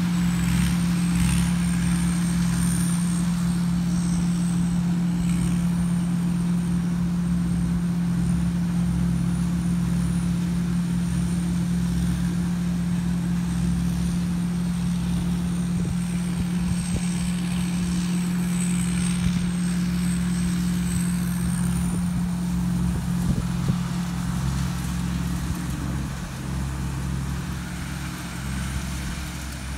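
TAMCO S7000 combine harvester with an Isuzu 6HK1 six-cylinder diesel engine running steadily under load while harvesting corn, a constant low hum, a little fainter near the end.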